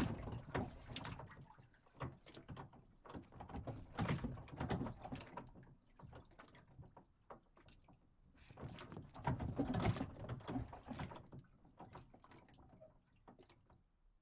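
A dock moving and shifting: irregular knocks and scrapes that come in swells, loudest about four seconds in and again around nine to ten seconds, dying away near the end.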